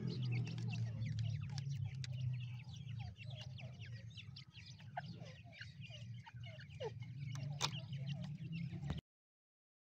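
A brood of teetar (partridge) chicks peeping constantly in short, high, falling chirps, with a few lower, louder calls partway through and one sharp click near the end, over a low steady hum. The sound cuts off abruptly just before the end.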